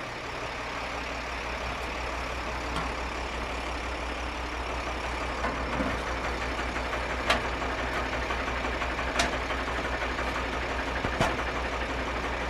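Sewer vacuum truck's engine idling steadily, with three sharp metallic knocks about two seconds apart in the second half as the suction tube sections are stowed on the truck.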